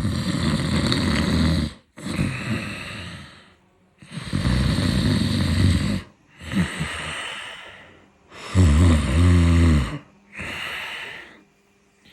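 A person snoring: three loud snores on the in-breath, each followed by a softer out-breath, about one breath every four seconds.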